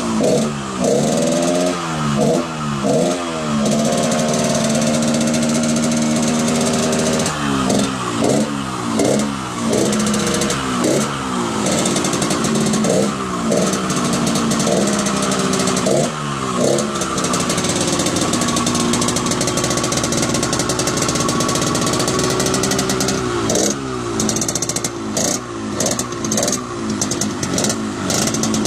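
Engine revved in repeated quick throttle blips, the pitch jumping up and dropping back each time, in clusters with stretches of steady running between. The exhaust note is a deep, raspy 'ngorok' growl.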